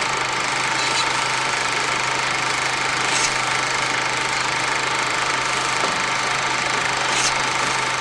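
Snowblower's small gasoline engine running steadily at a constant speed.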